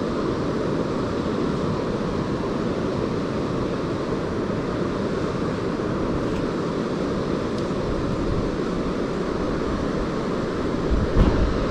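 Steady rush of river water flowing, with wind buffeting the microphone near the end.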